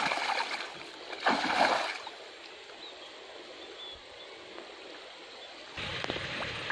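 Shallow stream water splashing as a person wades and grabs a fish by hand. There are two short splashy bursts in the first two seconds, then steadier sloshing close by near the end as the hands work the fish in the water.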